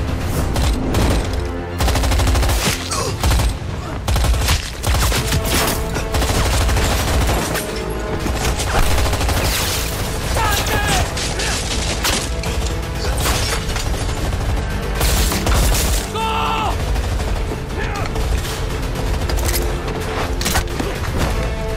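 Sound mix of a film battle: sustained rapid gunfire and explosions, one blast about halfway through, under a dramatic film score.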